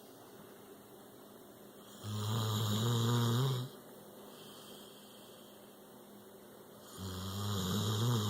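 Pit bull snoring in deep sleep: two long, low snores about five seconds apart, each lasting about a second and a half, with quiet breathing between them.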